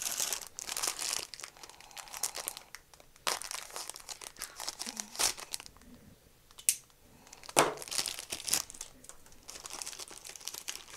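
Plastic bag and paper packaging crinkling and rustling as it is handled and pulled open, in irregular bursts with a few sharper crackles.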